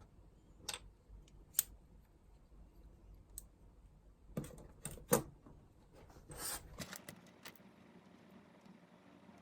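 Handling sounds of small hard objects: a few separate sharp clicks and taps, a quick cluster of louder clicks about halfway through, then a brief rustle.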